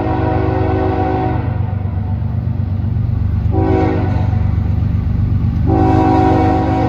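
Diesel freight locomotive's multi-chime air horn sounding a long blast that ends about a second and a half in, a short blast near the middle, and another long blast starting near the end: the long, short, long of a grade-crossing signal. The locomotive's diesel engine drones steadily underneath.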